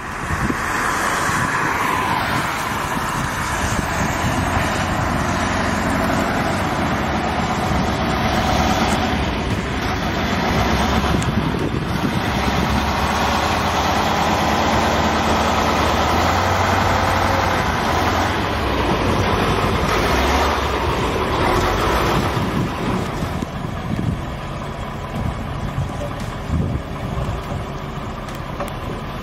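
MAN KAT1 military truck's diesel engine running as it drives past, growing louder as it nears and easing off after about 22 seconds as it moves away.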